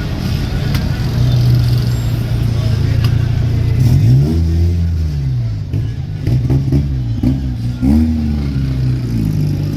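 Vehicle engine running under load, with its pitch climbing and falling sharply twice, about four seconds in and again near the end, as it revs through gear changes.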